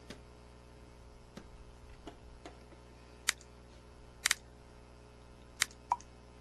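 A few sharp, isolated clicks of a computer mouse and keyboard, including a quick double click a little past four seconds in and two clicks close together near the end.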